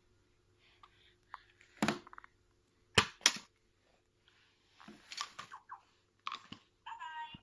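Sharp knocks and clatters of small objects being handled and set down, the loudest about three seconds in, with scraping rustles after them. A short high-pitched squeal comes near the end.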